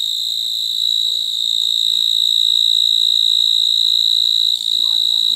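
Night insects, cricket-type, trilling in one steady, high-pitched, unbroken tone.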